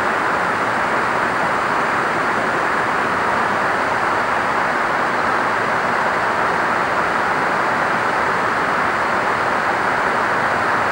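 A steady, even rushing noise that holds at one level throughout, with no bird calls standing out.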